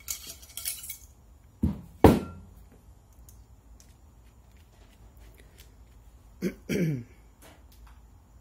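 Handling of shotgun barrels and cleaning gear on a bench: a brief scrape, then two knocks about two seconds in, the second much louder. Near the end comes a short sound falling in pitch.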